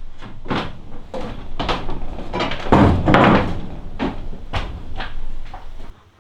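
A hammer striking wood again and again, about two blows a second. The heaviest blows fall around the middle, and the hammering stops just before the end.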